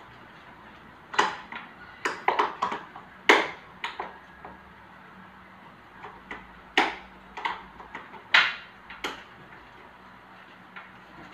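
Combi blind headrail being handled and fitted at the top of a window: a string of sharp clicks and knocks in irregular groups, the loudest about three seconds in and again about eight seconds in.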